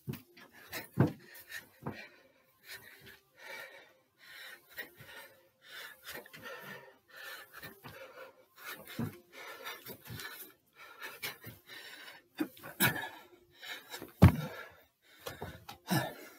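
A man panting hard during a set of box jumps, with repeated thuds of his feet landing. The loudest thuds come about a second in and twice near the end.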